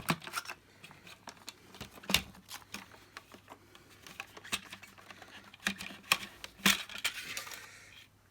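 Scattered plastic clicks and knocks from a Dyson DC50 vacuum's bin being handled and taken off for inspection, a few sharp ones with short quiet gaps between.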